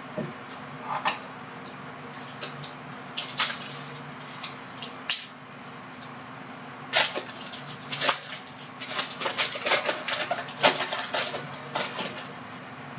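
Trading cards and their packaging being handled: irregular sharp clicks and crackles, sparse at first and coming thick and fast for the last several seconds.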